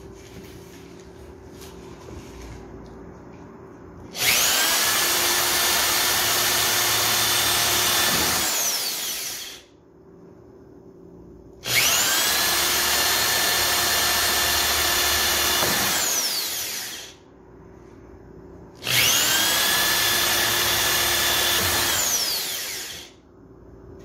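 Corded electric drill boring holes through the side of a thin plastic flowerpot, run in three bursts of about four to five seconds each. Each burst spins up with a rising whine, runs steadily, then winds down with a falling whine as the trigger is let go. There is quieter handling of the pot between bursts.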